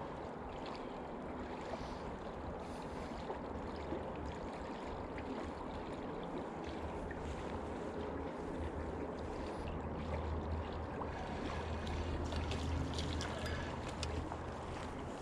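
River water flowing steadily, with a low rumble that grows a little louder in the second half.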